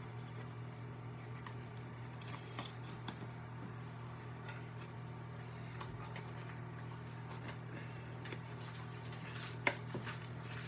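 Faint scrapes, squishes and small clicks of a sticky melted-candy and powdered-sugar mixture being worked in a bowl, with one sharper click near the end. A steady low hum runs underneath.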